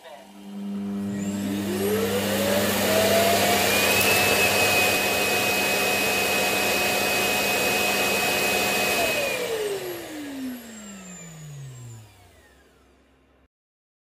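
Roborock S8 Pro Ultra's self-emptying dock running its dust-evacuation vacuum motor. About a second in it spins up with a rising whine over a rushing air noise, runs steadily, and from about nine seconds winds down with a falling whine.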